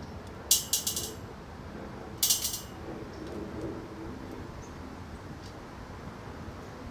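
Two brief bursts of quick, high metallic clicking and rattling, about half a second in and again about two seconds in, as a metal clamp is worked and tightened against the steel mounting plate of a linear bearing carriage.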